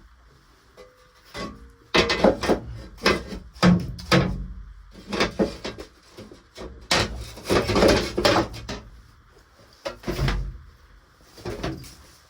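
Irregular knocking, clattering and scraping of hard objects being handled and shifted about, loudest in the middle stretch, with a last heavy knock about ten seconds in.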